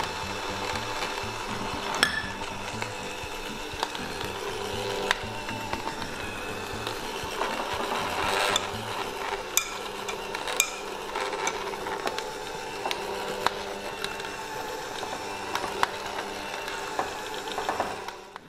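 Electric hand mixer with dough hooks running steadily, kneading stiff yeast dough in a plastic bowl, with occasional sharp knocks.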